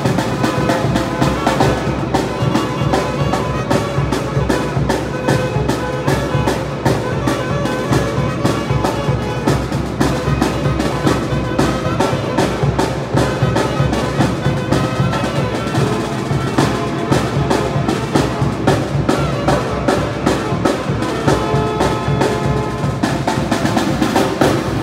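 Tamborazo band playing live: saxophone and other horns over a steady, driving beat of bass drum and snare.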